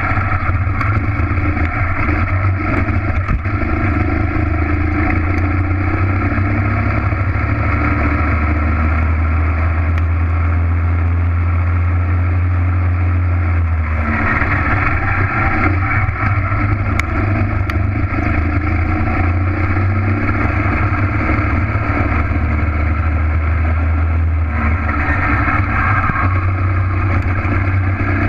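Racing kart's engine running hard at speed, heard close from the kart itself. The engine note is steady, then changes about halfway through and again near the end as the kart goes from corner to straight and back.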